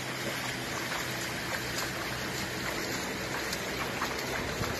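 Floodwater rushing across a road, a steady wash of water noise, with a low steady hum underneath.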